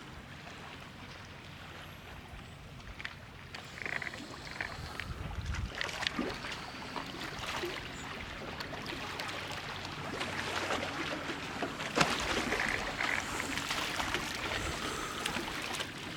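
Small river waves lapping at the shore, with many scattered short clicks and crunches, one sharper click about twelve seconds in. The lapping grows a little louder in the second half.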